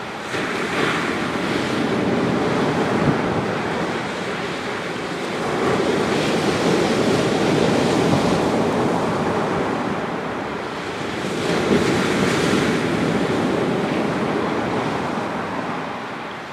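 Waves breaking on a sandy beach, the surf swelling and ebbing in surges about three times.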